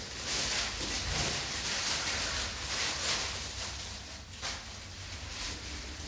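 Rustling and crinkling of plastic aprons, drapes and gauze being handled, loudest in the first few seconds and then quieter, over a low steady hum.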